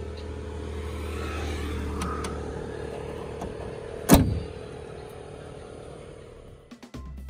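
A Premier Padmini 138D's steel bonnet slammed shut about four seconds in, a single loud thud, over a steady low hum.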